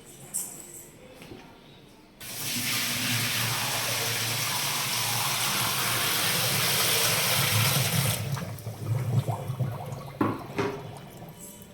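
A bucket of hot water poured into the drum of a top-load washing machine: a steady rush of water that starts suddenly about two seconds in and lasts about six seconds, then trails off into scattered splashes.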